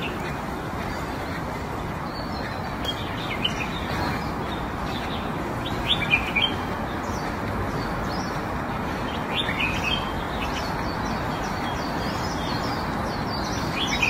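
Small birds chirping in short scattered calls, a few at a time, over a steady background hiss.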